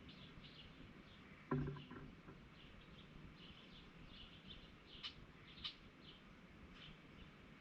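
Outdoor birdsong: faint, repeated high chirping from small songbirds. About 1.5 s in there is one brief, louder, lower sound, and there are two sharp chip notes near the middle.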